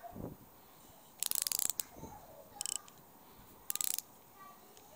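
Crivit Freespool 3000-S spinning reel's ratchet clicker rattling in three short, rapid bursts as the reel is worked by hand, the longest burst about a second in.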